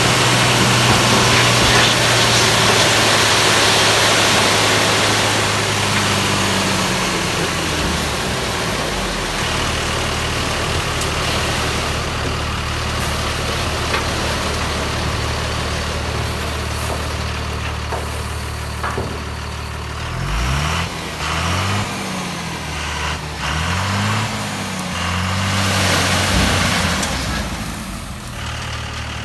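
Tata 1618 tipper truck's diesel engine running, held at higher revs in the first seconds as the tipper body goes up, dropping to a steady idle, then revved up and down several times in quick succession near the end.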